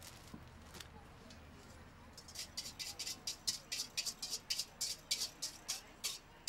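A utensil scraping vinaigrette out of a stainless steel mixing bowl onto a salad: a quick run of short scraping strokes, about four or five a second, starting about two seconds in.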